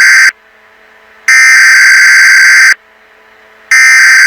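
Emergency Alert System data bursts (SAME header tones): harsh, loud electronic buzzing that comes in repeated bursts of about a second and a half with about a second's gap between them. They signal the start of an emergency alert message.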